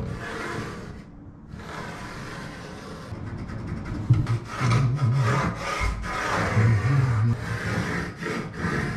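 Rubbing and scraping on a plywood panel as an aluminium spirit level and a folding ruler are slid and set down on it and a pencil draws marking lines along them, with small knocks of the tools.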